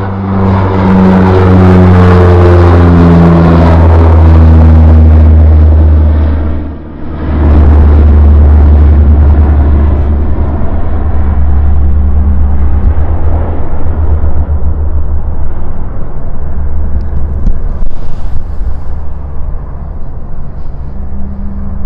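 Antonov An-26's twin Ivchenko AI-24 turboprop engines and propellers, a loud low drone as the aircraft flies close past, falling in pitch over the first few seconds, then a steady drone as it climbs away.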